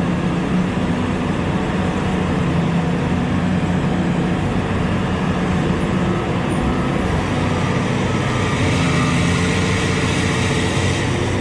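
Diesel engine of a Liebherr front-shovel mining excavator running steadily under load as it digs and lifts its bucket. It grows a little louder from about eight seconds in.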